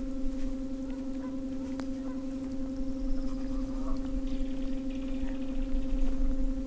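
Newport Vessels NK-180S 24V brushless electric kayak motor running at a steady trolling speed: a constant low hum with one higher overtone, over a low rumble.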